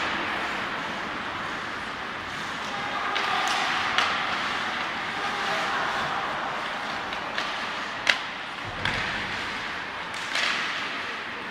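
Ice hockey play on a rink: a steady hiss of skates scraping the ice, broken by sharp cracks of sticks and puck, the loudest a little past halfway.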